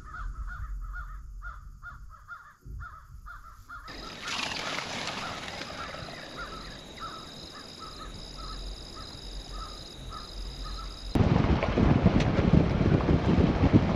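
Birds calling in a quick series of harsh calls, about three a second. About four seconds in a steady hiss comes up under the calls, which go on more faintly. Eleven seconds in, a much louder rushing noise starts suddenly.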